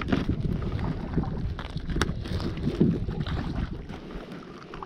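Wind buffeting a body-worn microphone, mixed with rustling and handling noise from a fishing net and heavy clothing in a boat. There is a sharp knock about two seconds in, and the rumble eases off near the end.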